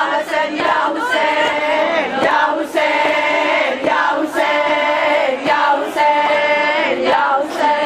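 A group of women chanting a Shia mourning lament (noha) in unison, with long held notes. Hands strike their chests in time, a short slap about every second and a half.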